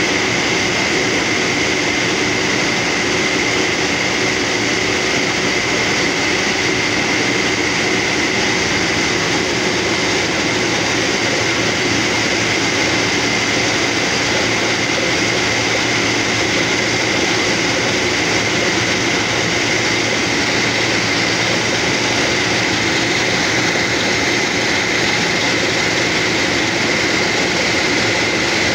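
Compressor-driven borewell drilling rig running steadily while drilling: a loud continuous noise with a steady high whine over a lower hum.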